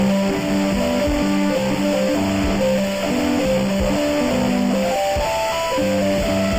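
Instrumental background music: a melody of short, stepped notes over a lower line, at a steady level.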